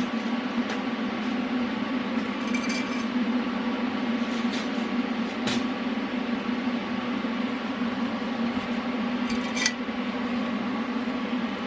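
Steady machine hum in a small shop, with a few light clicks and taps about five and ten seconds in.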